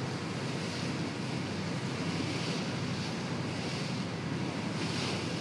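Wind buffeting the microphone over open water, a steady rushing noise with a low rumble underneath.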